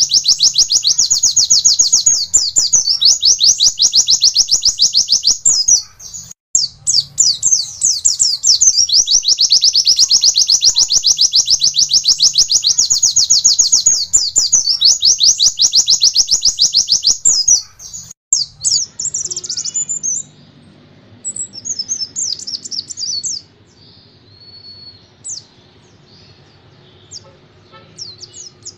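White-eye (pleci) singing a long, very rapid run of repeated high notes, the fast 'nembak' song, with a brief break about six seconds in. After about eighteen seconds it gives way to quieter, scattered short chirps and phrases.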